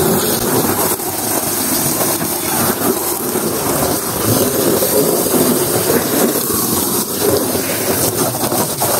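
A strong jet of tap water from a hose pipe spraying against a car's doors and body panels, a steady spatter of water on metal as mud is rinsed off.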